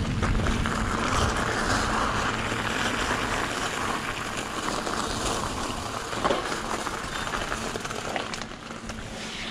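Mountain bike rolling down a wet trail, with a steady rush of tyre and riding noise and scattered clicks and rattles from the bike. The noise eases off toward the end as the bike slows.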